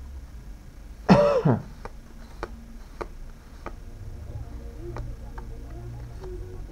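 A man clears his throat once, a short vocal sound falling in pitch, about a second in. Then come faint clicks of Pokémon trading cards being flicked through by hand.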